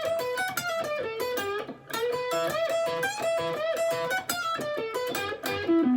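Fender Stratocaster electric guitar, on the neck-and-middle pickup setting, playing a quick repeating blues lick in E minor pentatonic with string bends, the 9 and flat 9 added to the scale. The phrase comes round about every two seconds, and a long bent note rises near the end.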